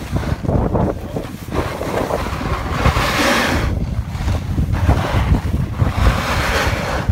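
Wind rumbling on a phone microphone during a ride down a snowy slope on a plastic saucer sled. A rushing hiss swells about three seconds in and again near the end.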